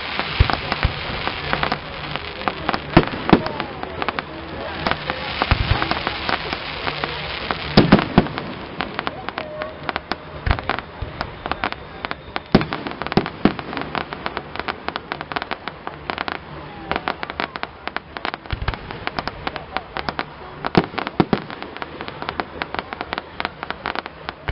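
Aerial fireworks: a dense, continuous crackling and popping of bursting shells, punctuated every few seconds by heavier bangs.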